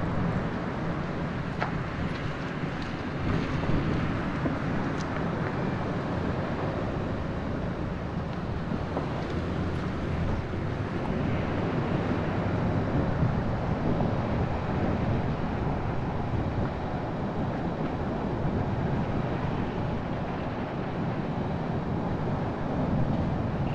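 Car driving along city streets: steady road and engine noise.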